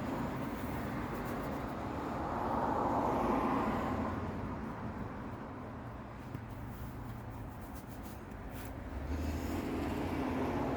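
Rumbling vehicle traffic noise that swells and eases twice, with a few faint clicks.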